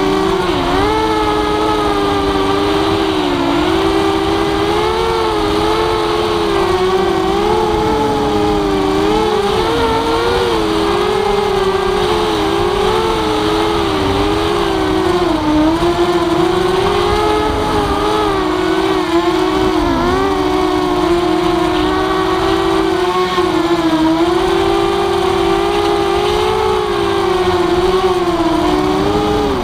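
Walkera F210 racing quadcopter's brushless motors whining in flight. Several close tones wander up and down in pitch as the throttle changes.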